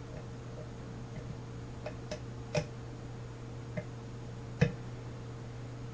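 Small metal clicks from a lock pick working the pins of a Master Lock 150 pin-tumbler padlock under tension: five or six sharp, irregular clicks, the loudest about four and a half seconds in, over a steady low hum.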